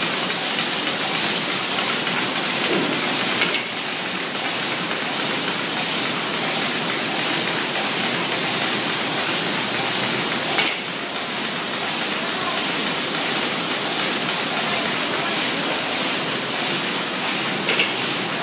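Automatic folder gluer running at production speed, feeding paper French fries box blanks through its belts and rollers: a steady, hissy mechanical clatter with a fast, even rhythm and an occasional sharper click.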